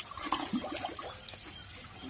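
Water splashing and gurgling as a baby elephant swishes its trunk in a plastic tub of water, with a cluster of short bubbly blips in the first second.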